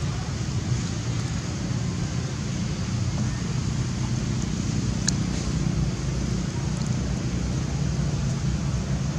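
Steady low outdoor rumble, with one sharp click about five seconds in.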